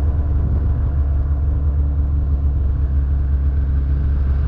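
An 850 two-stroke mountain snowmobile engine running at a steady pitch, a loud, even low drone with no revving.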